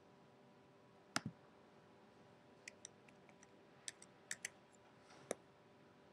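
Faint clicks of a computer keyboard and mouse: a double click about a second in, a quick run of light key taps in the middle, and one more click near the end.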